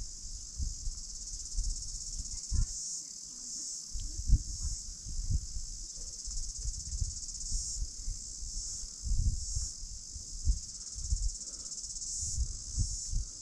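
Chorus of insects in dry grass and scrub: a steady, high-pitched shrill buzz that swells and eases slightly, over irregular low thumps and rumbles.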